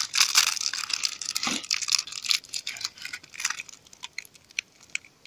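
Close crinkling and crackling of paper worked between the fingers, dense for about three seconds and then thinning to a few scattered ticks.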